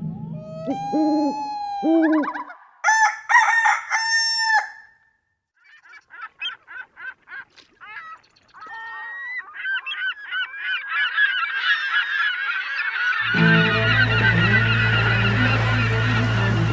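Geese honking: single calls at first, then a whole flock calling over one another. About thirteen seconds in, a steady low hum with rushing noise cuts in abruptly under the calls.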